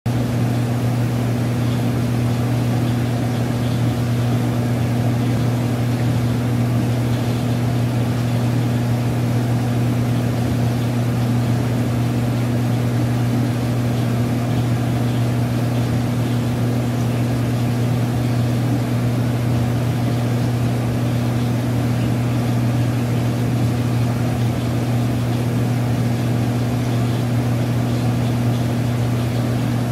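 Steady electric hum of an aquarium pump running, with a low drone and a fainter overtone an octave above, unchanging throughout, over a soft wash of water noise.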